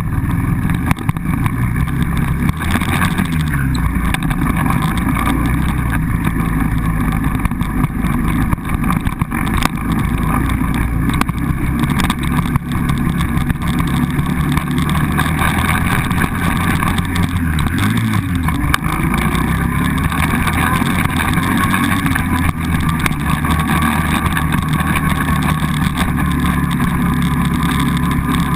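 Quad bike (ATV) engine running steadily while riding. Its note briefly drops and picks up again twice, once a few seconds in and again past the middle.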